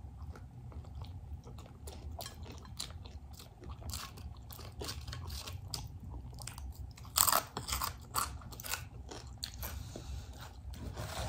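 Close-miked biting and chewing of crunchy food, a loaded hot dog with crunchy chip toppings: a run of irregular crisp crunches, loudest and thickest about seven to nine seconds in.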